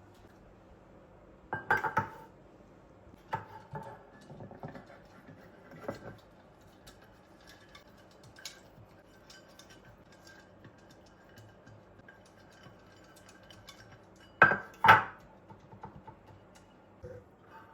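Kitchen dishes and utensils clinking and knocking against each other in scattered handling sounds, each with a short ring. The two loudest strikes come close together near the end.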